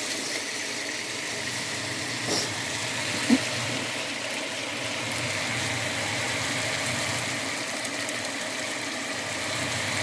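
Kitchen fan running steadily over bitter melon sizzling as it fries in a wok, with a single sharp knock about three seconds in.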